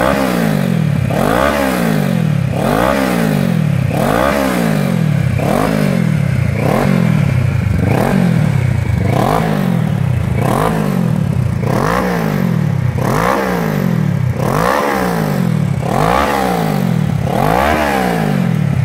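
Kawasaki ER-6f 649 cc parallel-twin engine revved again and again through an MTC stainless de-cat system and performance silencer. Each quick rev rises and falls back to idle, roughly three every four seconds.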